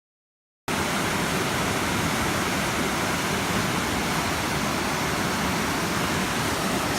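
Dead silence, then, under a second in, a waterfall's steady rushing noise that starts abruptly and holds even.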